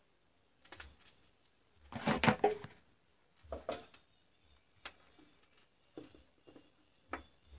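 Handling noises from cylindrical lithium-ion cells and wires on a workbench: a cluster of knocks and rattles about two seconds in, then a few single light clicks.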